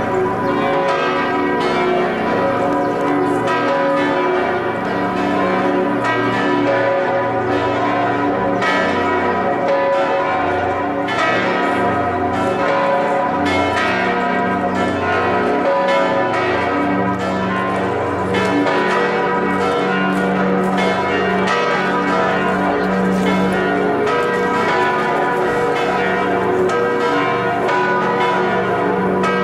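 The six swinging bells of Chartres Cathedral ringing together in full peal (the plenum), with strikes overlapping continuously at a steady level. It is a reconstruction of the full six-bell peal, since only four of the six currently swing.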